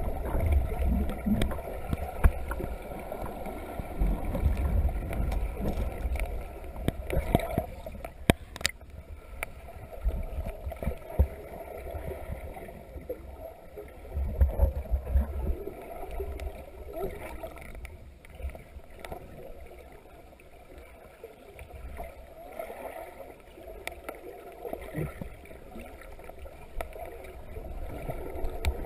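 Muffled underwater noise from a camera held under the water: uneven low rumbling of moving water with scattered clicks and knocks, one sharp click about eight and a half seconds in.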